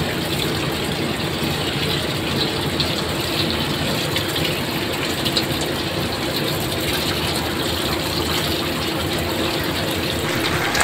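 Tap water running steadily and splashing as a whole pompano is rinsed by hand under the stream, the water falling into a metal colander in a stainless steel sink.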